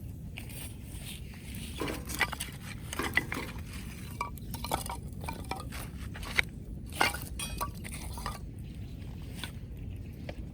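A run of irregular clinks and knocks from hard objects being handled, starting about two seconds in and stopping near the end, over a steady low rumble.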